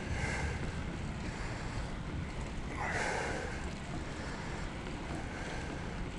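Wind buffeting an action camera's microphone while riding a bike, a steady low rumble. A brief higher sound cuts in about three seconds in.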